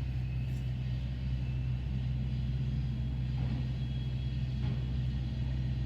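Steady low rumble of a motor vehicle running nearby.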